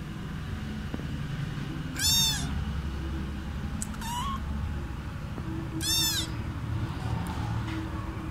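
Kitten meowing: two loud, high-pitched meows about four seconds apart, with a fainter short call between them.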